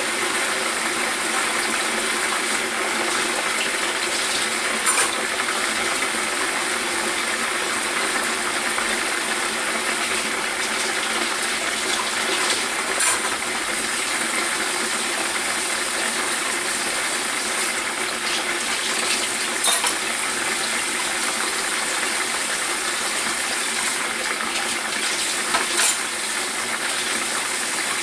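Pork chop frying in hot oil in a covered Presto deep fryer: a steady sizzle, with four louder pops spread through it.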